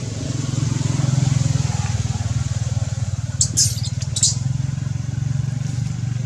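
A small engine running steadily, a low hum with a rapid even pulse. A few short, sharp high crackles come about three and a half and four and a quarter seconds in.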